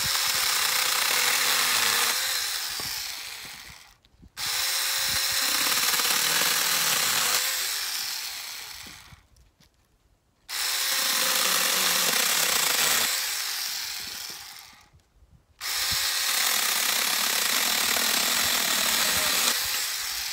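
Small cordless one-handed mini chainsaw cutting through a branch in four separate runs of several seconds each. Each run starts sharply on the trigger with a steady motor whine and trails off as the cut finishes.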